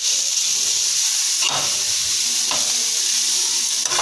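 Chopped cabbage and capsicum sizzling in ghee in a karahi as they are stirred, with a scrape of the stirring utensil against the pan about once a second in the second half.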